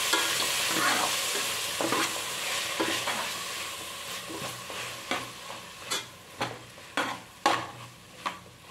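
Chopped tomatoes and onions sizzling in oil in a metal pot while a steel ladle stirs them. The sizzle fades over the first few seconds, and from about four seconds in the ladle scrapes and knocks against the pot roughly every half second.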